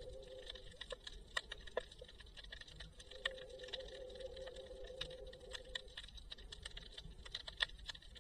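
Underwater sound picked up by an action camera filming just below the surface: irregular sharp clicks and ticks, several a second, over a low rumble and a steady hum that fades out and back in.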